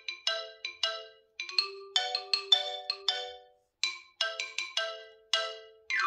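OnePlus 9 Pro ringtone playing: a chiming melody of quick notes that each ring and fade, in short phrases with brief gaps between them.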